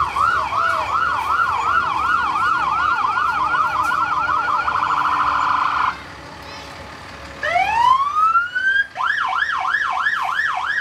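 Fire truck electronic siren yelping, about three quick up-and-down sweeps a second. It switches to a faster warble for about a second and cuts off about six seconds in. About a second and a half later a siren winds up with a rising wail and goes back into the quick yelp near the end.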